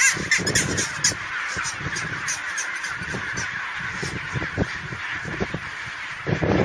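Penguin colony calling: a steady din of many overlapping bird calls, with several sharp, loud calls in the first second.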